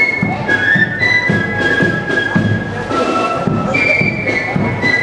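Marching flute band playing a tune: flutes carry the melody in held high notes over a drum beat of about two strokes a second.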